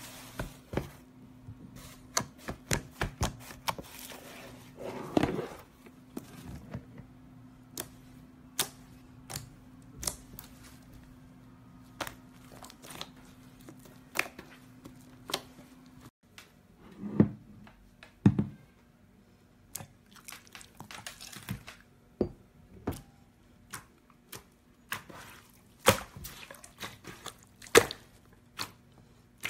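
Hands pressing, poking and stretching slime, making many sharp clicks and squelches as air pockets in it are pressed. A faint steady hum runs underneath.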